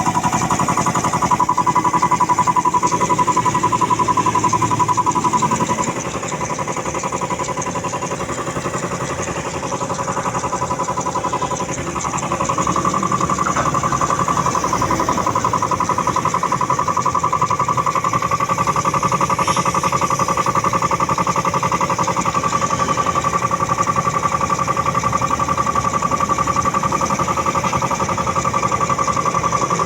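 Puma 2090 air compressor running steadily under test, a continuous mechanical drone with a steady whine; it eases off about six seconds in and picks back up around twelve seconds.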